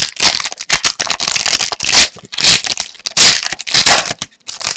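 Trading-card pack wrapper being crinkled and torn open by hand, in a run of loud irregular crackling rustles that stop near the end.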